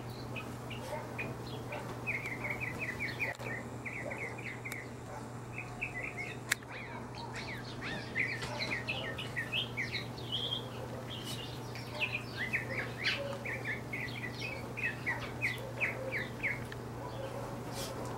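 Small birds chirping in several quick runs of short, falling notes, over a steady low hum.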